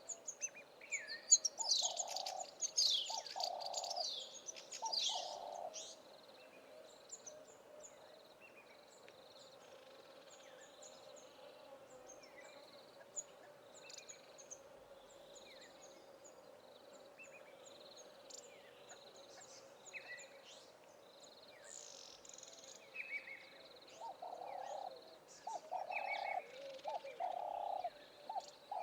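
Mixed chorus of wild bush birds: many short high chirps and whistles over a short high note that repeats about once a second. Groups of low cooing notes come in at the start and again near the end.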